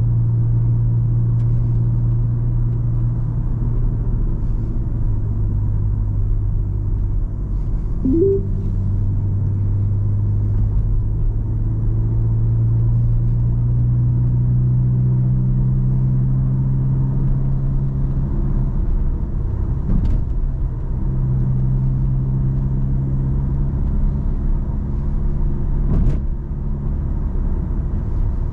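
Car engine and tyre-on-road noise while driving: a steady low drone whose pitch drifts up and down with speed. A brief rising squeak comes about eight seconds in, and two short sharp knocks near the end.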